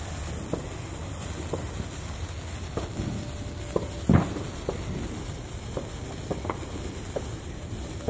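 A consumer firework burning with a steady hiss and scattered crackling pops, the loudest pop about four seconds in.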